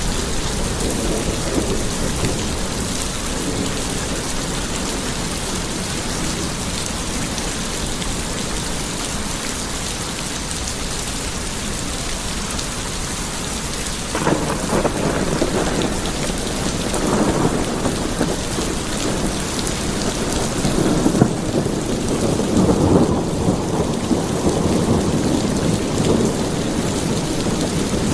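Steady rain falling, with thunder rumbling in from about halfway through and rolling on in low swells to the end.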